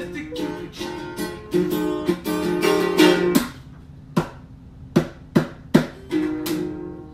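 A ukulele being strummed: a run of ringing chords, then four short, sharp single strums a little past the middle, then a few more chords.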